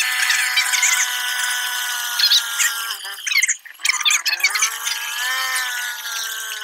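Side-by-side ATV running over rough ground with a high steady whine. The whine cuts out briefly a little past halfway, comes back lower, then climbs in pitch again, with scattered rattles and knocks throughout.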